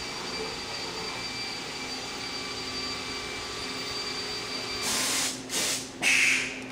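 Steady hum of machine-shop equipment with a thin, constant high whine. About five seconds in come three short, loud bursts of hiss.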